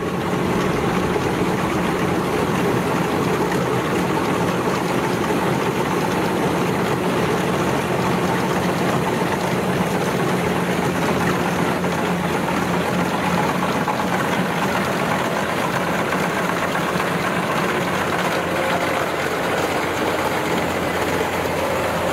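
Kubota rice combine harvester's diesel engine running steadily under load while it cuts and threshes rice, a continuous even engine drone.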